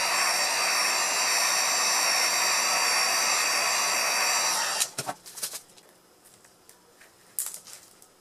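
Heat gun blowing steadily with a faint high whine, warming the edge of a tablet's cover glass to loosen the adhesive underneath. It cuts off suddenly about five seconds in, followed by a few light clicks and knocks of handling.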